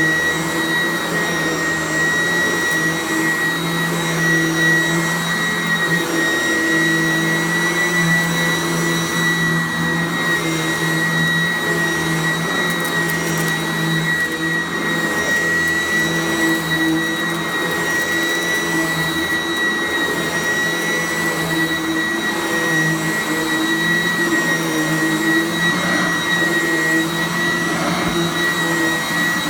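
Sanitaire SC888K commercial upright vacuum cleaner running steadily, a constant high whine over the motor and airflow noise.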